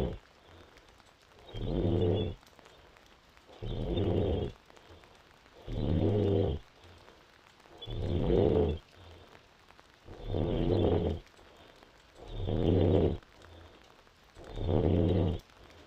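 A pregnant woman snoring in deep sleep. The snores are evenly spaced, about one every two seconds, each lasting about a second and separated by quiet breaths.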